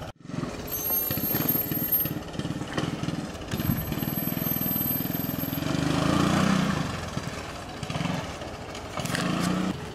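Three-wheeler ATV engine running as it is ridden around, its pitch and level rising and falling with the throttle, loudest about six seconds in.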